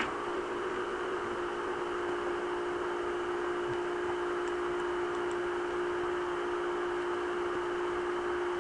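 Steady background hum and hiss with one low tone that holds without change: the drone of a running fan.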